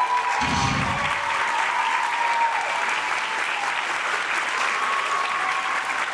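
Theatre audience applauding steadily, with high sustained cheers and whoops over the clapping, and a short low thud about half a second in.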